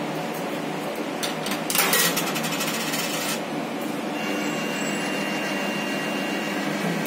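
Coin-operated sanitary napkin vending machine at work: a fast run of clicks about two seconds in, then a steady whine from its dispensing mechanism for a couple of seconds.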